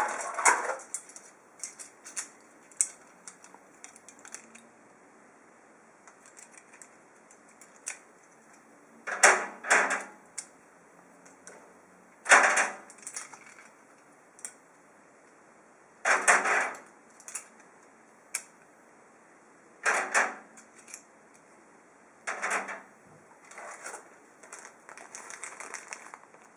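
Handling noise from unpacking a PC case and its parts: short bursts of clicking and rustling every few seconds, with quiet gaps between.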